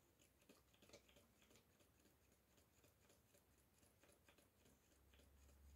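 Near silence: room tone with a few faint, small clicks and a low hum coming up near the end.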